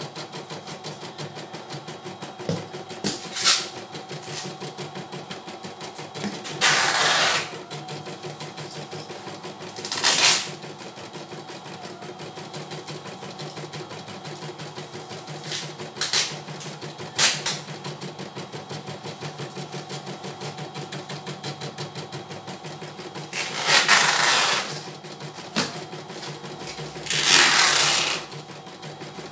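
CNY E900 computerized embroidery machine stitching a design, its needle running in a steady, rapid rhythm. Several short, louder bursts break in along the way.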